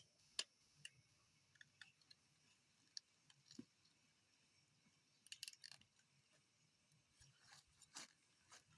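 Faint, scattered clicks and small crunches of a knife working on a piglet carcass, in short irregular clusters.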